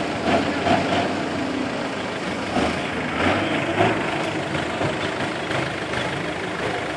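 Off-road 4x4 engines running steadily, with a few brief louder peaks.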